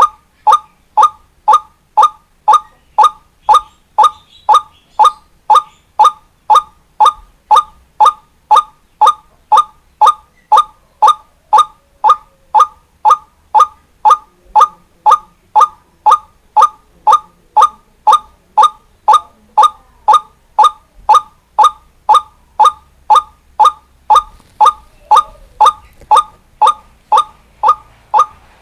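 White-breasted waterhen (ruak-ruak) calling: one short, loud note repeated steadily about twice a second, each note with a slight downward hook. This is a recorded lure call for drawing in wild waterhens.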